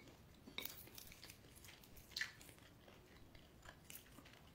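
Faint chewing and crunching of peanuts, with a few soft clicks of peanuts being picked from a bowl; the clearest crunch comes about two seconds in.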